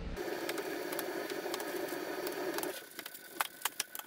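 Scattered light clicks and knocks of plastic trim and clips being handled at a pickup's front end, over a steady hum that stops about two and a half seconds in.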